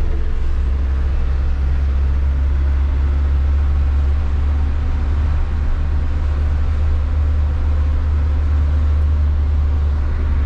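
Converted bus motorhome on the move, its engine and road noise a steady low rumble heard from inside the bus.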